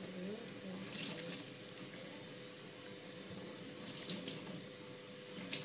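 Kitchen tap running into a sink while hands work under the water, with a few short, sharp sounds in the sink.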